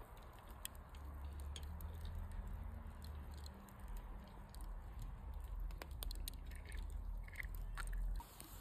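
Wood campfire crackling, with irregular sharp snaps and pops over a low steady rumble.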